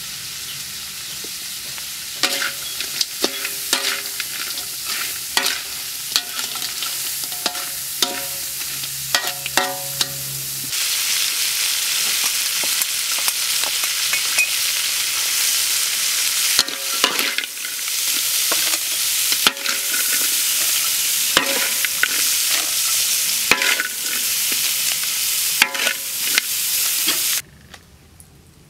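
Small crabs frying in a wok with a steady sizzle, while a spatula scrapes and knocks against the pan as they are stirred. The sizzle gets louder about a third of the way in, and drops away sharply near the end.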